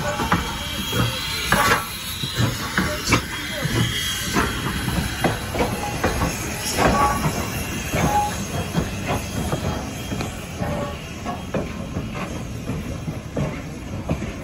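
Strasburg Rail Road steam locomotive No. 89 and its tender rolling slowly past at close range. Rods and wheels clank and knock irregularly, with brief squeals from the wheels on the rail.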